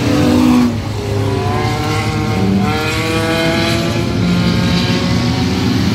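Several stock-car engines racing on a dirt oval, with engines revving up in rising pitch about a second and a half in and holding high for a couple of seconds.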